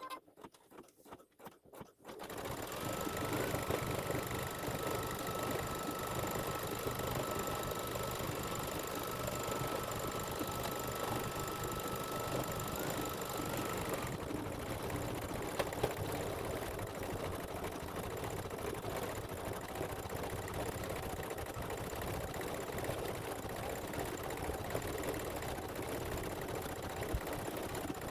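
Embroidery machine stitching out a design section: a few slow stitches to begin with, then running steadily at full speed, with a faint high whine through the first half.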